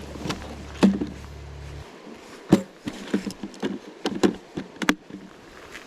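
A quick, irregular series of clicks and knocks close to the microphone, handling noise, after a low steady rumble that stops about two seconds in.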